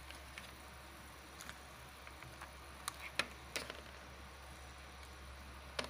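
Faint steady hiss of crab simmering in a pan of bubbling liquid, with a few sharp clicks and knocks about halfway through and near the end as the crab shell is handled against the pan.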